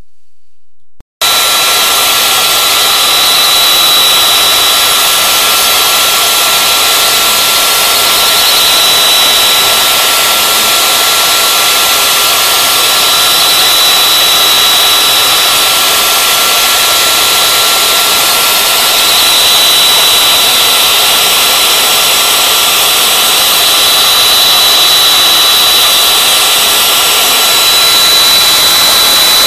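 CNC router spindle running at speed, its bull-nose bit milling a foam block: a loud, steady, high-pitched whine over a hiss that starts suddenly about a second in.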